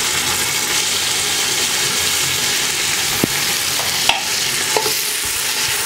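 Freshly added tomatoes and fried onions sizzling in hot oil in a stainless steel pot, a steady frying hiss. A few faint clicks come about three to five seconds in.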